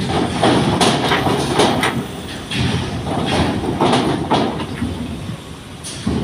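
Cars driving off a ferry's loading ramp, their tyres setting off repeated clanks and thumps on the steel ramp over a steady rumble of engines and tyres.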